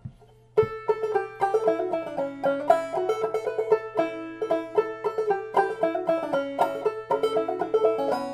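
Upbeat background music of quick plucked-string notes over a steady low drone, starting about half a second in.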